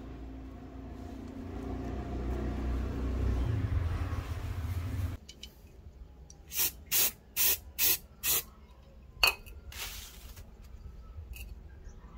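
Aerosol spray paint can sprayed in five short hissing bursts, then a sharp click and one longer burst. Before the spraying, a steady low rumble.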